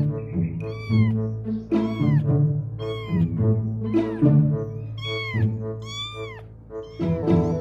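High-pitched kitten mews, about one a second, each rising then falling in pitch, over background music with long sustained low notes.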